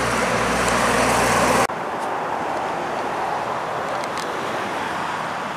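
A backhoe loader's diesel engine idling with a steady low hum, which cuts off suddenly a little under two seconds in. After that, a quieter, even rumble of road traffic.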